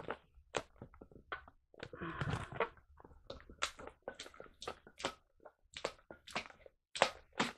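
Latex modelling balloon being twisted and squeezed in the hands: a run of short rubbery creaks and rubbing sounds, a few a second, with a longer rub about two seconds in, as a twist is pushed between the balloon's segments.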